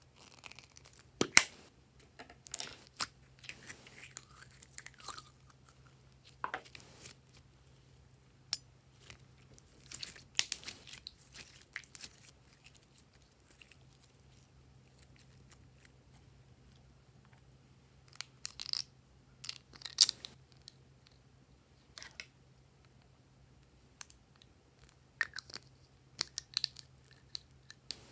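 Glossy slime squeezed out of a plastic cup and stretched apart by hand, giving sporadic sticky crackles, pops and clicks in clusters, with a quiet spell in the middle.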